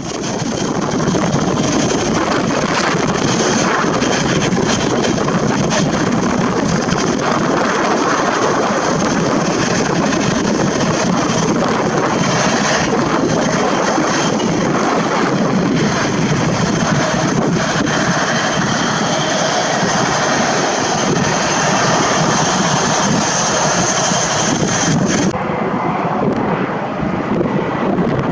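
Airliner engines running loud and steady, with a high whine over the engine noise that cuts off suddenly near the end.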